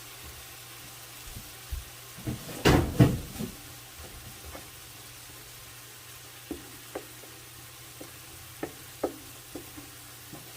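Kitchen utensil and pot sounds while cooking: a loud clatter of several knocks about three seconds in, then a run of single light taps, over a steady low hiss from the pot on the heat.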